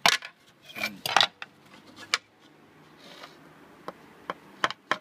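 Hollow carbon-fibre quadcopter frame shell knocking and clattering against a tabletop as it is moved and set down. There is a sharp knock at the start, a quick cluster of knocks about a second in, another around two seconds, then a few light taps near the end.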